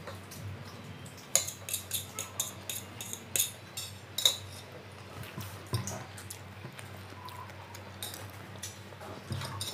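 Metal forks clinking and scraping on steel plates as two people eat pasta and noodles: a quick run of about a dozen sharp clinks from about a second in to about four seconds, then a few scattered ones.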